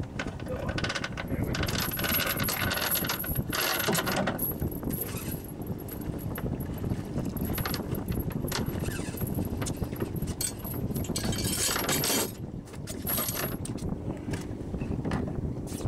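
Fishing reel's drag buzzing in two long runs as a big bat ray pulls line off against the bent rod, over a steady rumble of wind on the microphone.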